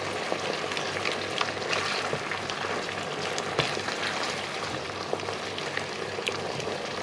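Chopped-tomato sauce sizzling and bubbling over low heat in a non-stick frying pan, with a wooden spoon stirring and scraping through it. Small scattered pops and ticks stand out over the steady sizzle.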